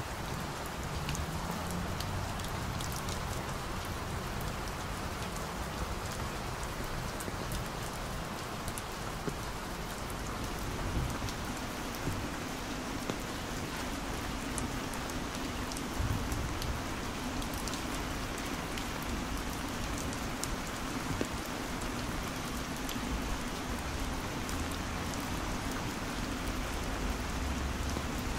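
Steady heavy rain falling, with many sharp raindrop ticks on top of a continuous hiss.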